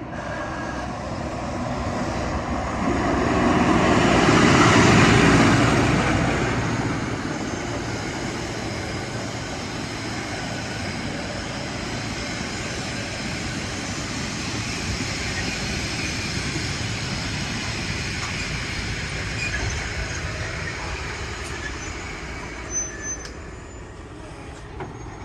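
Narrow-gauge diesel-hydraulic locomotive running past with its train. It is loudest about four to six seconds in as the locomotive goes by, then the carriages run past with a steady rumble that fades near the end.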